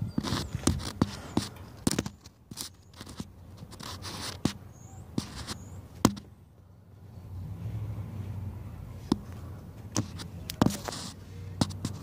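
Handling noise from a phone being moved about under a car: irregular sharp taps and knocks with scrapes over a low rumble, about a dozen clicks at uneven spacing and no steady rhythm.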